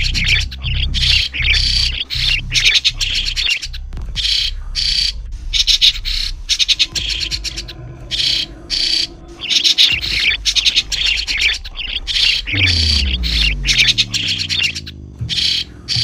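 Chestnut-tailed starlings calling: clusters of short, high, rapid calls that keep coming with brief gaps. A low tone falls steadily in pitch in the last few seconds, under a low rumble.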